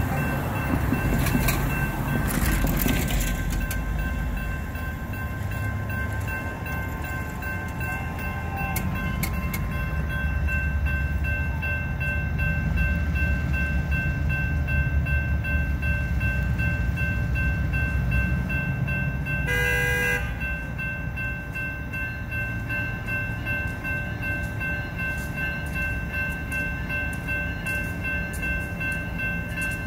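Grade-crossing warning bell ringing steadily over the low rumble of an approaching Union Pacific locomotive. A car passes in the first few seconds, and about twenty seconds in the locomotive's horn sounds one short note.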